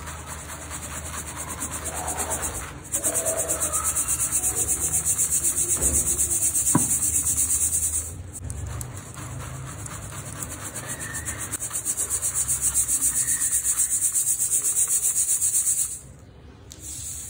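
Dry cement powder being sifted through a fine stainless steel mesh strainer shaken quickly by hand, a steady high hiss pulsing with each shake. It pauses briefly about halfway and dies down near the end as only small lumps are left rolling in the mesh.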